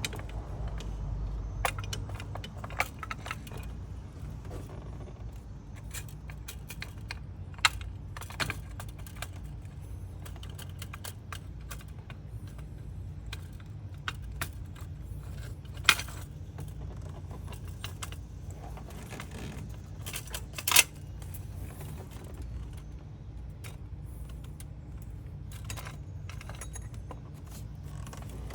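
Metal hand tools and bolts clinking and ticking while the new water pump's bolts are started by hand. The sharp clicks are scattered and irregular, the loudest near the middle and about three quarters of the way in, over a steady low hum.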